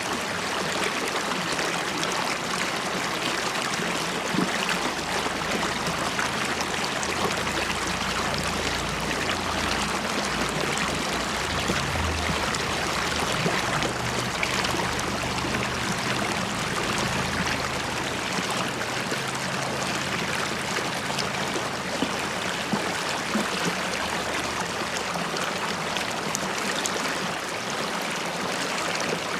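River water flowing and bubbling steadily over rocks, an even rushing and babbling with fine splashes.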